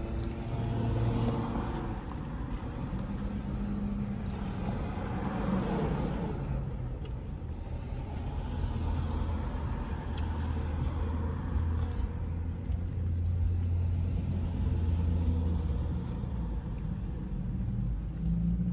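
Car running at idle, heard from inside the cabin as a steady low rumble.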